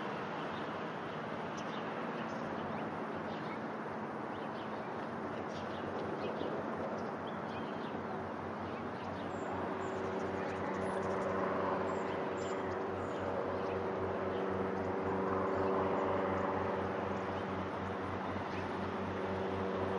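Aircraft overhead, likely departure traffic from Santa Monica Airport: a steady rumble with a low droning hum whose tones grow stronger about halfway through.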